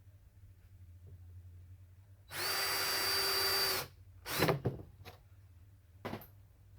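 Power drill driving a screw into board, running at a steady even pitch for about a second and a half. A few short knocks follow as the work is handled.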